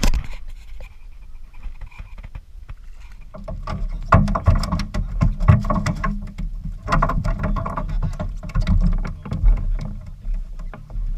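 Fishing boat on the water: a low rumble with many knocks and clicks, after a sharp knock at the start. The rumble gets louder about three and a half seconds in.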